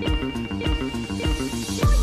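Electronic background music with a steady kick-drum beat under held synth chords.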